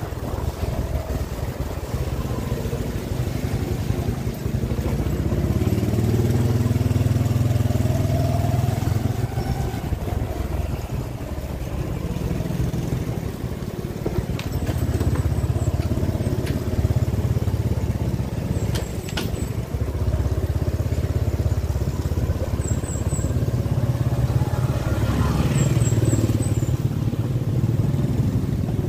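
Motorcycle engine running under way, its rumble swelling and easing as the bike moves along.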